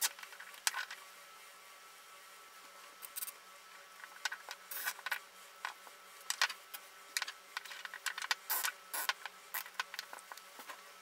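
Plastic cable ties being pulled tight around a bundle of small electrolytic capacitors: short, scratchy zips and clicks as the straps ratchet through their locks, with light handling noise. The sounds come in quick irregular bursts, thickest in the second half.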